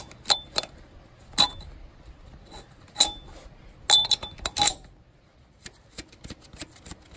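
Steel bolt being pushed through a welded steering-ram mounting bracket and heim joint, metal clinking against metal in scattered sharp taps with a brief ring. The busiest run of clinks comes about four seconds in, with fainter ticks after.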